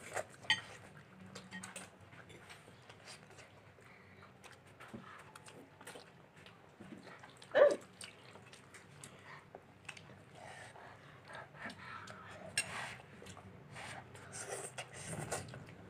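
Quiet eating sounds: chewing and mouth noises with scattered small clicks, and one short, louder sound about halfway through.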